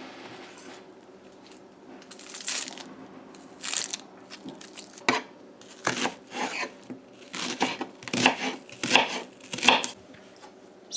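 Seasonings (onion, garlic, hot pepper, scallion) being chopped: about ten short, irregular bursts a second or so apart, starting about two seconds in and coming more often in the second half.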